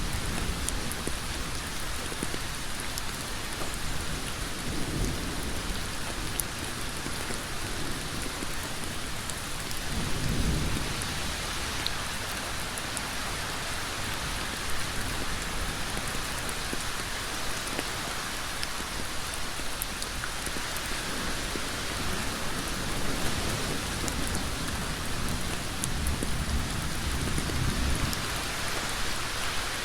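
Heavy rain falling steadily on a road surface as a dense, even hiss. A few low rumbles swell up under it, the strongest about ten seconds in.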